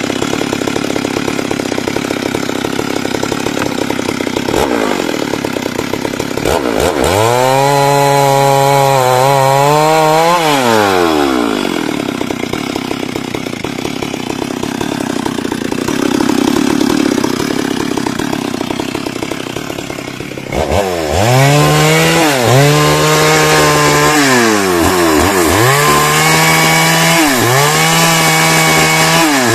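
Stihl MS 382 two-stroke chainsaw cutting into a teak tree. Its engine revs up and drops back: one long rev about a third of the way in, steadier running under load, then four quick rev-and-drop cycles near the end.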